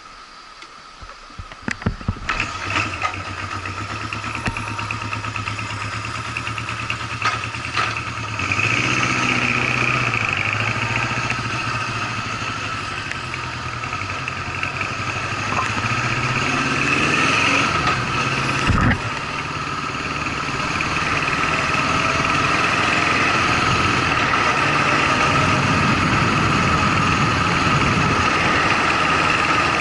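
Honda CB750 inline-four motorcycle engine started about two seconds in, then running steadily at idle. It gets louder about eight seconds in and dips briefly near the twentieth second.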